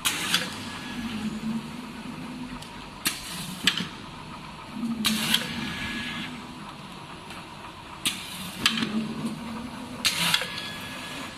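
A belt-type combination weigher running its weigh-and-discharge cycle. Clusters of sharp metal clacks from the stainless gates and chutes repeat about every two to three seconds, with a low hum from the belt drives starting and stopping between them.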